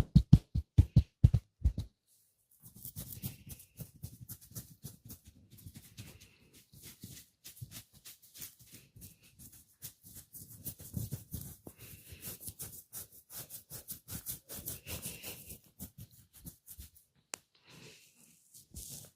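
Massage hands on oiled skin. A run of evenly spaced percussive tapping thumps, about five a second, stops about two seconds in. After a brief pause comes a long stretch of quick, irregular slapping and rubbing strokes, with a single sharp click near the end.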